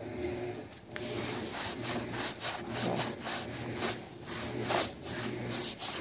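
A kitchen sponge scrubbing the quilted fabric of a mildew-stained mattress, in quick back-and-forth scraping strokes, about two or three a second, starting about a second in.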